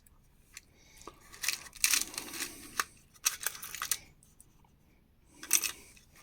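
Hands rummaging through a box of small hardware: bursts of clicks and rustling as screws, pins and bits are moved and picked out, with quieter gaps in between.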